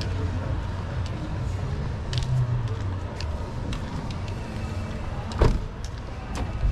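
Street ambience with the steady low rumble of passing traffic, scattered small clicks, and one sharp knock about five and a half seconds in.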